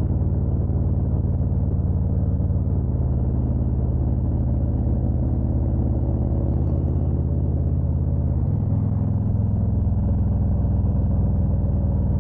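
Harley-Davidson Road Glide's V-twin engine running steadily while riding, with a sudden change in the engine note about eight and a half seconds in.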